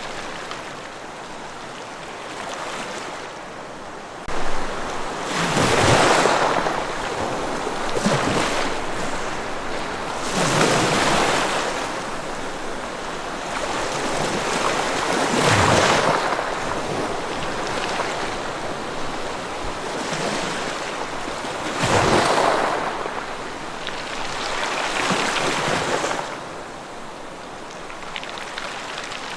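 Ocean waves breaking and washing up the shore, the surf swelling and easing off every few seconds.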